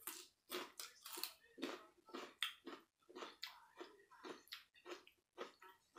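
A person chewing crunchy raw vegetables close to the microphone, a crisp crunch about three times a second.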